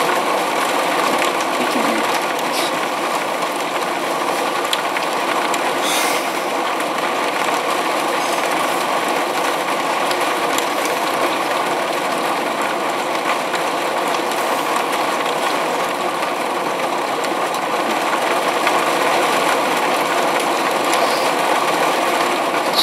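Rain falling steadily in a thunderstorm, an even hiss with faint patters of drops.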